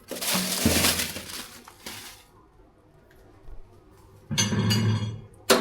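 A rustle, then the microwave's glass turntable plate clinking and knocking as it is set into place, ending with a sharp click.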